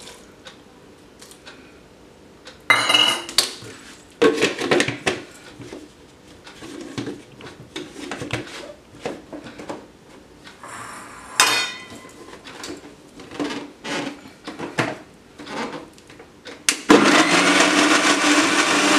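Clatter and knocks of a plastic mixer jar and its lid being handled and fitted. About 17 seconds in, an Usha mixer grinder's motor starts suddenly and runs steadily, blending chopped apple, beetroot and cucumber with water.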